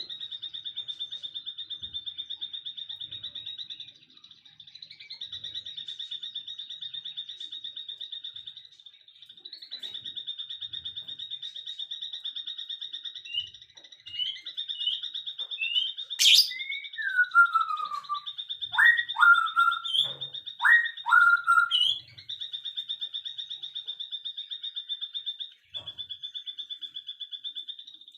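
Birdsong: a continuous rapid, high-pitched trill with short breaks, joined about halfway through by louder chirps, falling whistles and down-slurred calls for several seconds, plus one sharp click.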